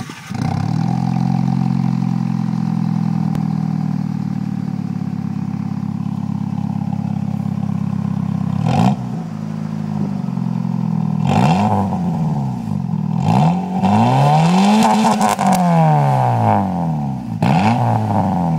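Fiat Punto Mk2 1.2 four-cylinder petrol engine through an aftermarket sports exhaust, heard at the tailpipe. It catches right at the start and idles steadily for about eight seconds. Then it is blipped several times, with one longer rev of about three seconds that rises and falls in the middle of the blips.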